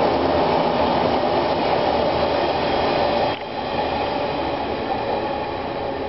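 JR 185 series electric multiple unit passing at speed, its wheels running over the rails. The noise drops suddenly a little over three seconds in as the tail of the train goes by, then fades as the train moves away.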